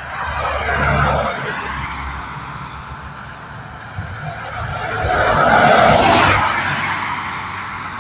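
Road traffic passing close by on a paved road: one vehicle goes by about a second in, then a louder one swells and fades a little after the middle, the sound of engines and tyres on tarmac.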